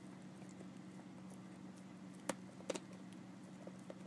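Puppy gnawing on a rawhide chew: faint scattered clicks and scrapes of teeth on the hide, with two sharper clicks a little past the middle, over a steady low hum.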